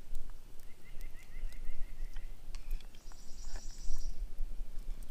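Wind buffeting an action camera's microphone that has no windscreen, making a steady low rumble. A faint bird trill of quick rising notes comes about a second in, and a high buzz follows around three seconds in.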